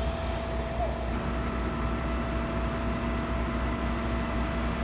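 An engine running steadily, with a constant low hum and a few steady higher tones.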